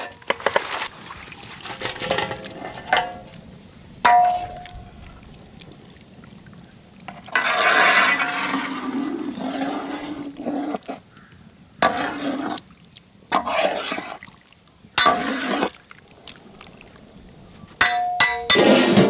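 Metal cooking vessels clanking and clinking several times as goatfish are tipped into a large pot of curry, with a stretch of splashing and pouring about eight seconds in.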